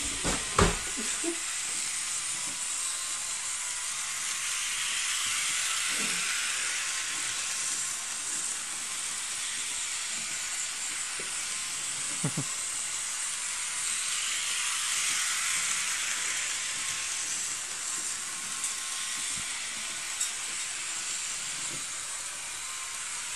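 Model railway train running on its track: a steady high hiss that swells twice and fades, with a few light clicks.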